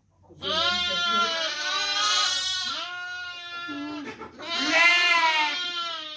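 Sheep bleating: three long, drawn-out bleats one after another, the last the loudest.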